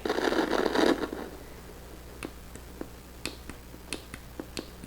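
Arduino Mozzi synthesizer giving a short buzzy tone for about a second. Then come light, sharp clicks a few times a second, which fit the rotary switch being stepped through its positions.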